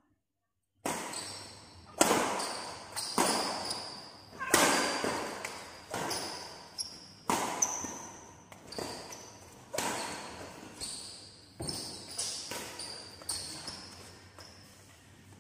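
Badminton singles rally: sharp racket hits on the shuttlecock about once a second, mixed with footfalls, each one echoing in a large hall. Short high squeaks come between the hits.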